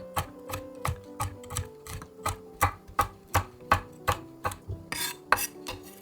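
Knife chopping vegetables on a cutting board: a steady run of sharp strokes, about three a second, over soft background music.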